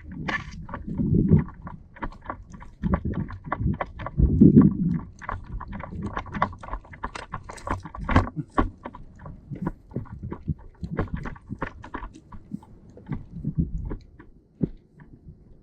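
Handling and movement noise right at the microphone: irregular clicks, knocks and rustling with low thuds, loudest about one and four seconds in and thinning out near the end.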